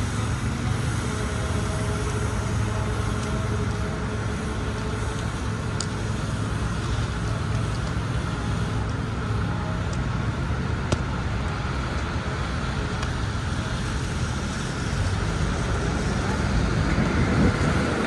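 Steady city street traffic: vehicles running and passing with a constant low rumble and hiss, a couple of faint clicks, growing a little louder near the end.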